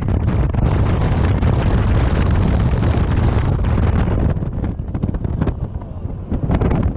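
Strong wind buffeting the microphone over the low rumble of a moving vehicle on the road. The wind eases for a moment about two-thirds of the way in, then picks up again.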